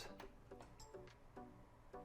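Faint electronic lullaby tune of short, separate notes playing from a Graco DuetSoothe baby swing's built-in speaker.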